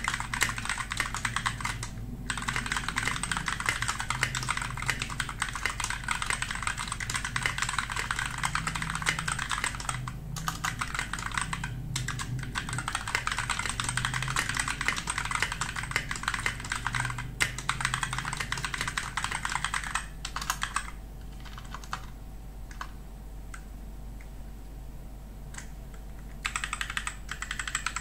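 Typing on a Rexus MX5.2 Finale mechanical keyboard: a fast, dense stream of key clicks broken by a few short pauses. About three quarters of the way in the typing thins to a few scattered, softer keystrokes, then picks up again near the end.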